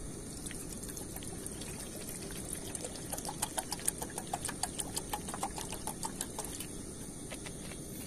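Water poured from a plastic bottle into an open metal camping kettle, starting as a trickle and turning into a fast run of glugs from about two and a half seconds in, stopping at about seven seconds in.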